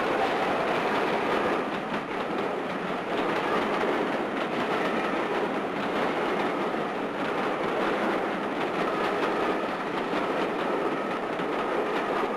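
Steam-hauled passenger train running in alongside a platform: a steady rumble of coaches rolling past, with the wheels clattering over the rail joints.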